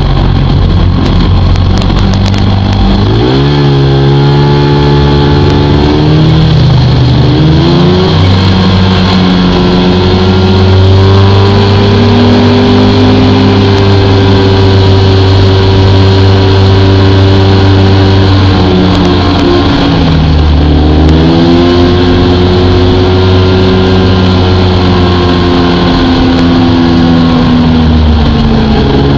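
Two-stroke snowmobile engine running at trail speed, heard from the sled itself. It revs up a few seconds in, holds a steady pitch, eases off and climbs again about twenty seconds in, then drops back near the end.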